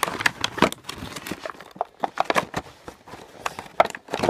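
Clear plastic blister packaging of a Nerf blaster being handled and pulled open: an irregular run of sharp crackles, clicks and knocks of stiff plastic.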